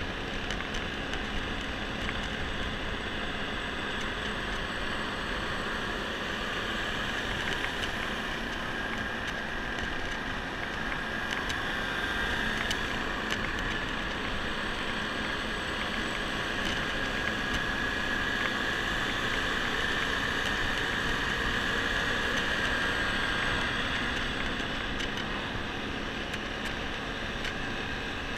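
Honda scooter running at a steady cruise while ridden, with wind rushing over the microphone. A high steady whine sits over the engine and wind, growing a little louder through the middle.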